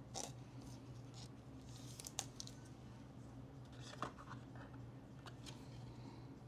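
Faint rustling and a few light clicks of trading cards and their packaging being handled, the sharpest about two and four seconds in, over a steady low hum.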